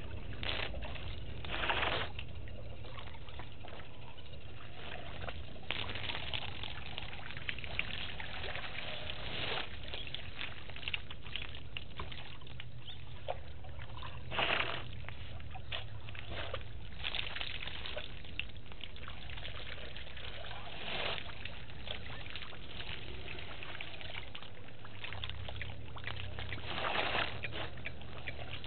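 African elephants drinking at a waterhole: water trickling and splashing as their trunks draw it up and empty it into their mouths, with a few short louder splashes over a steady outdoor hiss.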